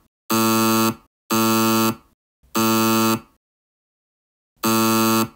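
Wrong-answer buzzer sound effect, a harsh steady buzz sounded four times in short blasts of under a second, the fourth after a pause of over a second. The buzzer signals 'no'.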